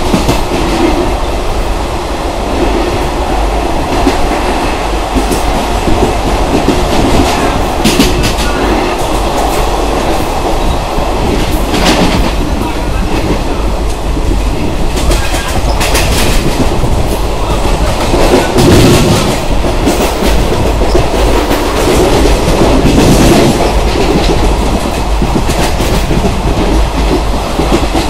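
ICF passenger coach running along the track, its wheels giving a steady rumble and clatter, with sharper clacks every few seconds as they cross rail joints.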